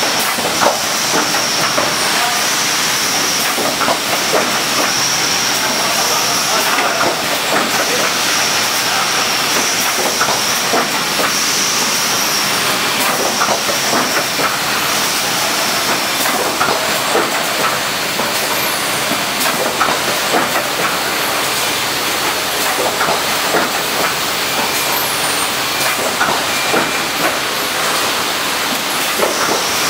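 Thermonox cup form-fill-seal machine running: a steady hiss of machinery with many small clicks and clacks, and a high whine that comes and goes through the first half and drops out about halfway.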